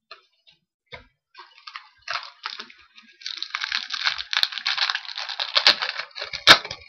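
Trading card pack wrapper crinkling and crackling as it is handled and torn open, building to dense crinkling and ending in one sharp snap.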